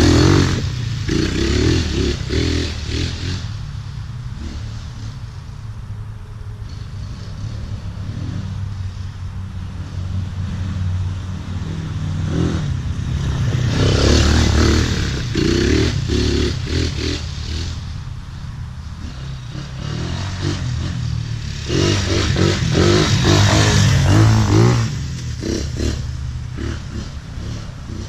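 A Tornado 250cc Chinese quad's engine running, its revs rising and falling. It surges louder three times: at the start, about halfway, and for a few seconds near the end, with rattle and clatter mixed in.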